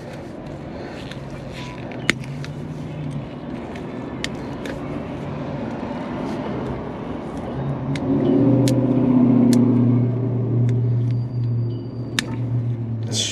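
A motor vehicle's engine runs nearby, a steady low hum that swells louder from about eight seconds in and eases near the end. Scattered sharp clicks sound over it.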